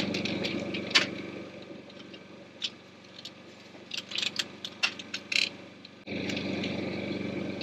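A steady motor hum fades out about two seconds in and comes back abruptly near the end. In the quieter middle stretch there are a few sharp clicks and knocks of wood or tools being handled.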